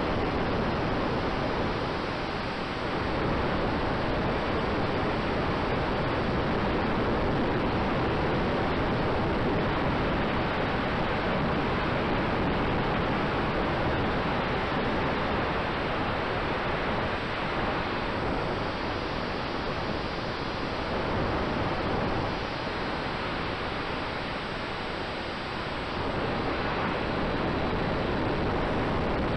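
Steady rushing noise of wind and the motor on the onboard camera of a large-scale model biplane in flight, with a faint steady tone running underneath.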